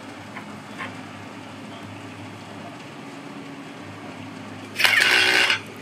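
A cordless drill running briefly, for nearly a second near the end, over a steady low hum.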